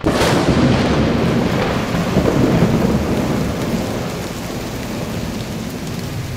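A sudden clap of thunder that rumbles on and slowly fades, over steady heavy rain.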